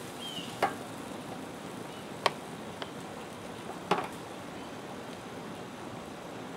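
Metal barbecue tongs clicking sharply against the grill grate and tray, four times over a few seconds, the clicks about two and four seconds in loudest, over a steady low hiss.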